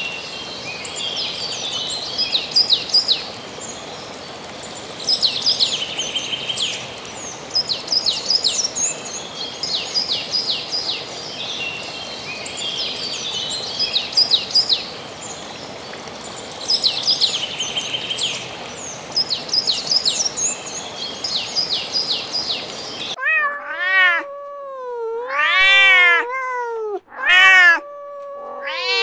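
Small birds chirping in repeated short high phrases over a steady outdoor hiss. About 23 seconds in this cuts off abruptly to a domestic cat meowing several times, loud drawn-out meows that rise and fall in pitch.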